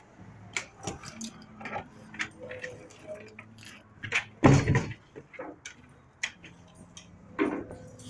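A metal chain dog collar and leash clip jingling and clinking in scattered short clicks, with one heavier knock against the wooden elevator box about halfway through as the dog climbs out.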